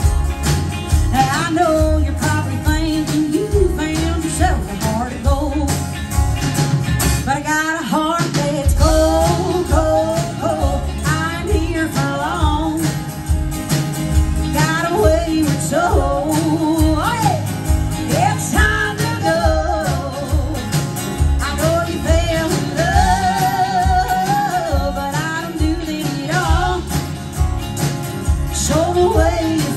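Live country band playing a song with a woman singing lead over acoustic and electric guitars, bass and a drum kit keeping a steady beat.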